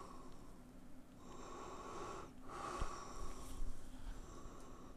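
A man breathing heavily through his nose close to the microphone, in long breaths with short pauses between them, with a couple of faint knocks about three seconds in.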